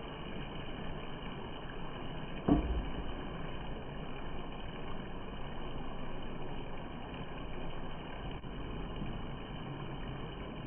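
Wooden spatula stirring chicken pieces and onion in a steel pot, with one sharp knock of the spatula against the pot about two and a half seconds in, over a steady background noise.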